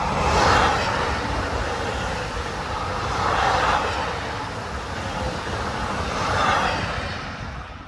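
A train passing close by: a loud, steady rush of wheel and rail noise that swells three times and dies away near the end.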